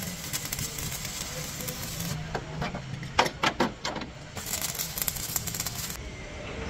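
Metalwork on a truck chassis: a steady crackling hiss, broken about two seconds in by a string of sharp taps, then hissing again until about six seconds in.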